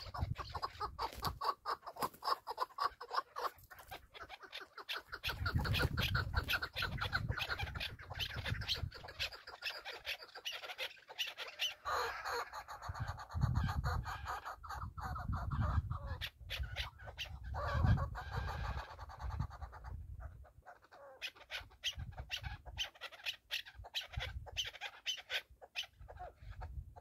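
Chukar partridges calling: a rapid, repeated clucking chatter of many short notes a second. Intermittent low rumbles rise under it several times.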